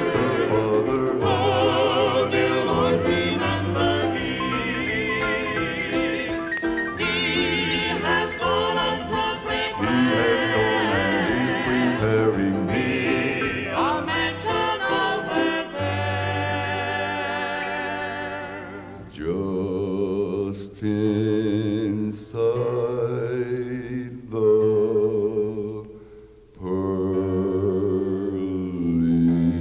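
Southern gospel male vocal quartet singing a song in close harmony, played from a mono vinyl LP. In the second half the singing comes in separate phrases with short pauses between them.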